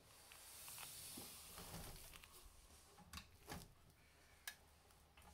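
Near silence with a few faint taps and clicks, about three seconds in and again near the end, as a metal diecast scale model excavator is handled and turned on a table.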